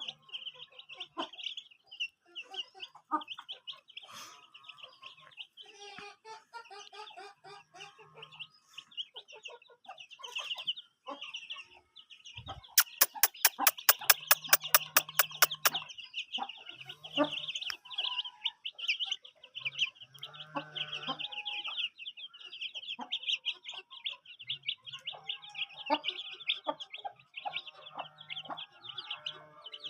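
Chickens clucking over a steady, high chirping chorus. In the middle comes a quick run of about a dozen sharp clicks.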